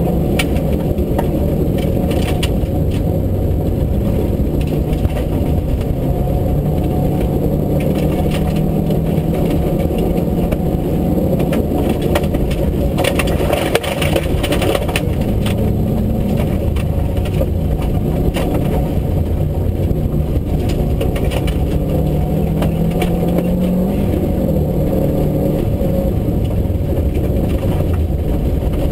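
Rally car engine running hard, heard from inside the caged cockpit, its revs rising and falling through gear changes. Gravel and stones clatter against the underbody throughout. There is a brief lift about halfway through.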